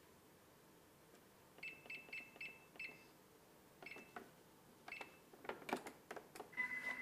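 Thermomix control panel beeping as its buttons are pressed: a quick run of five short beeps, then two single beeps about a second apart. Clicks from the machine's dial follow, and near the end a steady whine starts as the cooking programme begins.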